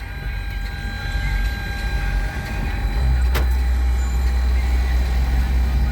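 Heavy, muffled bass booming from a car sound system. It eases off for the first three seconds and comes back strong about three seconds in, with a sharp click at that moment.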